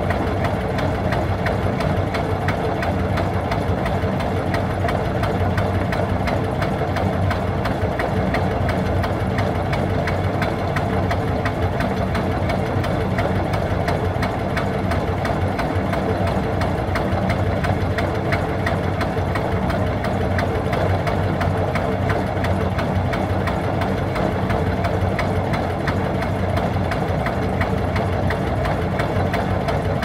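Sabb Model G single-cylinder marine diesel running steadily at about 360 rpm with an even, knocking beat.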